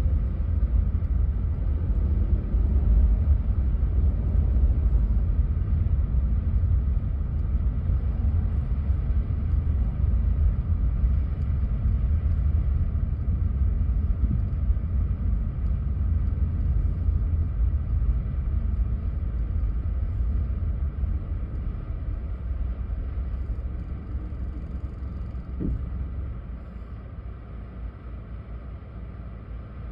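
Steady low rumble of a car driving slowly in traffic, heard from inside the cabin. It dies down over the last few seconds as the car comes to a stop, with one brief thump just before.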